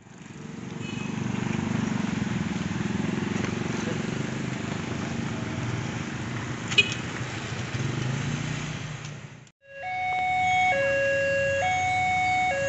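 Low rumbling street noise with one sharp click, then, after a cut, a railway level-crossing warning alarm: an electronic two-tone signal alternating high and low, each tone held just under a second, over a continuing low rumble. The alarm signals that a train is approaching the crossing.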